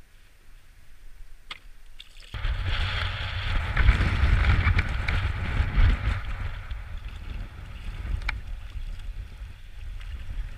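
Strong wind buffeting the microphone with a heavy rumble and hiss, starting suddenly about two seconds in, over water splashing around a kayak. A few faint clicks come before it.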